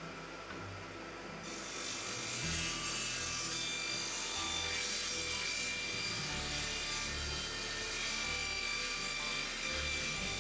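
Small table saw ripping through a wooden chest side panel, the cut starting about a second and a half in and running steadily.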